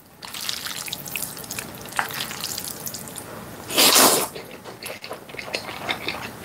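Small wet clicks of sauce-coated gan-jjajang noodles being lifted with chopsticks, then one loud slurp of the noodles about four seconds in, followed by wet chewing.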